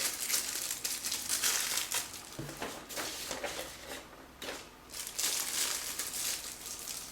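Packaging being handled and unwrapped by hand: irregular crinkling and rustling in uneven bursts.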